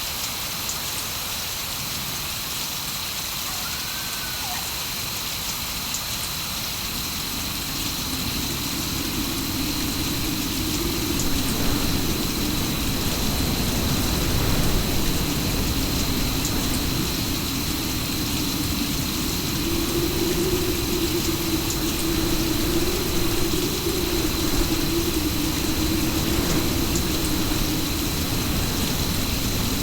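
Steady rain falling, with a low wavering drone joining in about a quarter of the way through and holding to the end.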